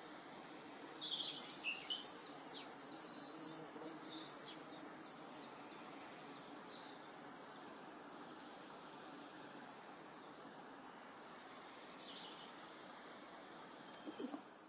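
Small songbird singing a rapid run of high chirps and trills for about five seconds, starting about a second in, with one short call again near the end, over a faint steady hiss.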